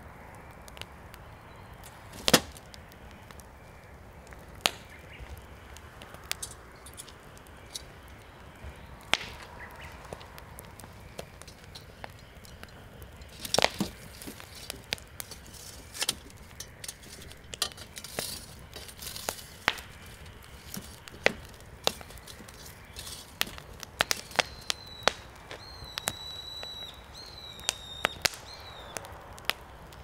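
Firewood burning in an open fire pit, crackling with irregular sharp pops and snaps, one loud snap about two seconds in and a cluster near the middle. Near the end a bird calls with a few high whistled notes.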